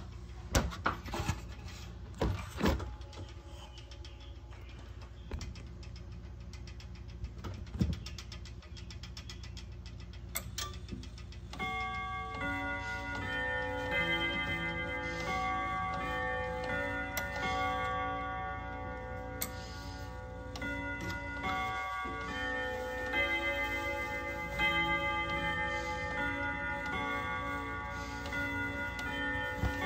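Grandfather clock with a Hermle movement chiming a melody, its struck metal notes ringing on and overlapping each other, starting about a third of the way in. Before the chime begins there are scattered clicks and knocks.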